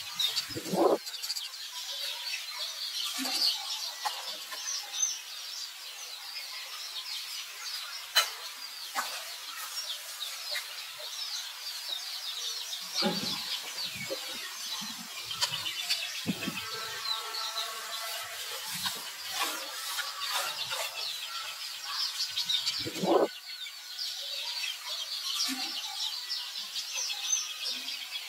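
Continuous high chirping of many birds. A few dull thumps come at about 1 s, 13 s and 23 s, and a sharp click near 8 s. Midway, between about 16 and 20 s, there is a drawn-out pitched call.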